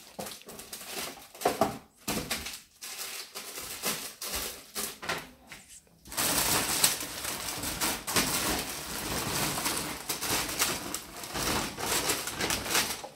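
Plastic shopping bag and plastic-wrapped grocery packages rustling and crinkling as they are handled. There are scattered short rustles at first, then continuous crinkling from about halfway through.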